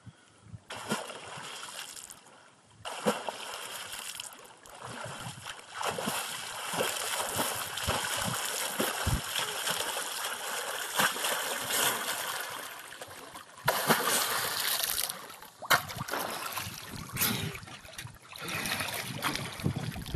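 Open-water swimmer splashing through lake water: quieter strokes at first, then steady louder splashing of front-crawl arm strokes, with a few sharper slaps of water partway through.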